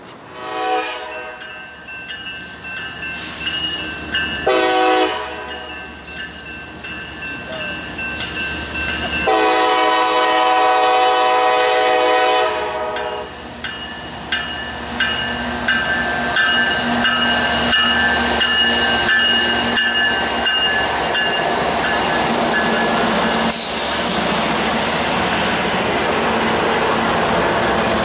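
Freight locomotive horn sounding three blasts, the last and longest about three seconds, as a loaded coal train approaches. The train then passes with a steady rumble and a run of clicks from wheels over rail joints, with a thin high squeal running underneath.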